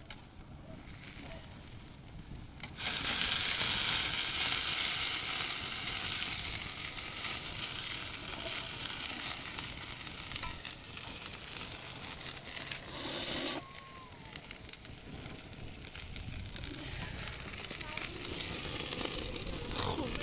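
Food sizzling in hot oil in a pot over a wood fire. It starts suddenly about three seconds in, is loudest at first and slowly settles, with a short drop about two-thirds of the way through.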